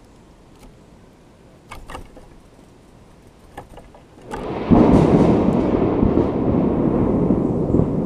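Thunder: a sudden loud rolling rumble breaks out about four seconds in and keeps rolling, after a few faint clicks.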